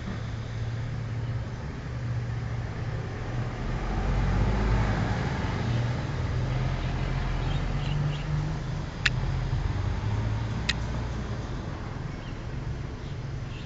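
Steady background road-traffic rumble that swells for a few seconds about four seconds in, with two sharp clicks around nine and eleven seconds in.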